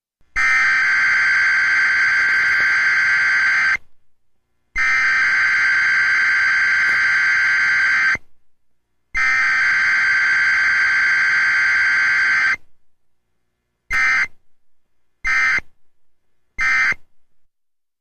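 Emergency Alert System SAME data tones: three long, harsh buzzing header bursts of about three and a half seconds each, about a second apart, then three short end-of-message bursts of about half a second each.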